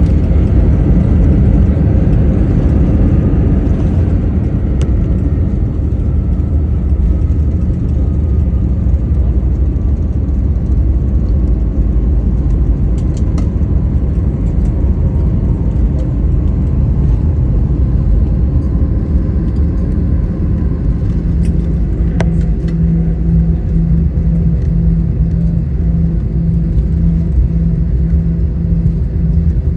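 Jet airliner cabin noise during the landing: a loud, steady low rumble of engines and airflow, with a faint whine that falls slowly in pitch over the first half. A steady low hum joins about twenty seconds in.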